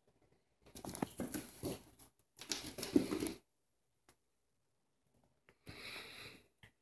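Two cats scuffling in rough play, their paws and claws scrabbling and skittering on a rug and hardwood floor in two bursts of a second or so each. A shorter sliding rush follows near the end as a small stuffed toy skids across the wood floor.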